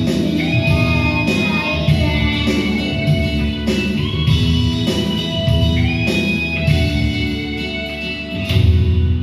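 Music: a song with guitar and singing.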